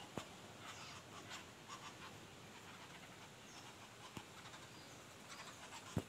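Faint outdoor background hiss with a few isolated sharp clicks, one just after the start and another about four seconds in.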